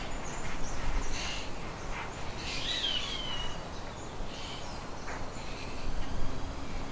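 Birds calling in a shed: scattered short chirps, with one clearer call that slides down in pitch about three seconds in. A faint steady low hum runs underneath.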